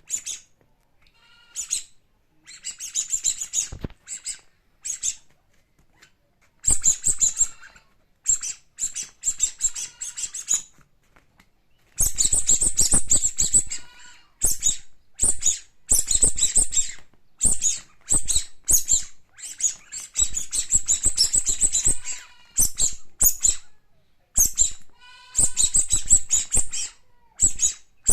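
Squeaky toys squeezed again and again, giving quick runs of high-pitched squeaks separated by short pauses; the squeezing gets busier about halfway through.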